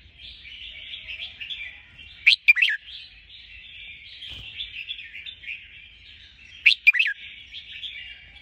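Bird-trapping lure recording of chattering bird calls: a continuous busy chatter, broken by a loud, sharp, falling double call about two seconds in and again near the end.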